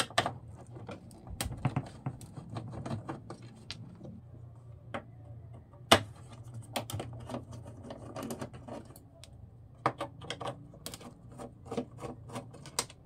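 Irregular clicks, taps and clatter of a turntable's plastic and metal parts being handled and worked on during disassembly, with a sharper knock about six seconds in, over a faint steady low hum.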